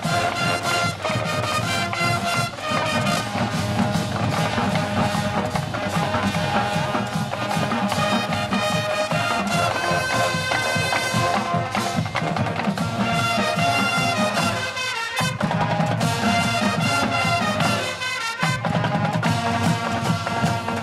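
High school marching band playing: brass over a drumline beat, with two brief breaks in the music in the second half.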